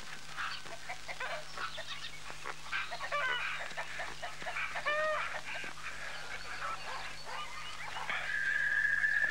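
Domestic fowl calling in a string of short, separate calls, some with a bending pitch. A steady high-pitched tone comes in about eight seconds in and holds to the end.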